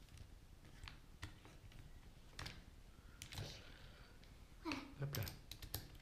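Faint, scattered clicks and taps of a hex key and small metal parts as the grip screws of a paintball marker are undone.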